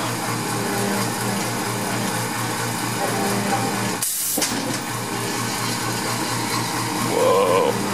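Electric-chair animatronic prop running its electrocution effect: a pulsing electric buzz, about four or five pulses a second, over the hiss of its fog jets. A short sharp hiss comes about four seconds in, and a louder wavering tone near the end.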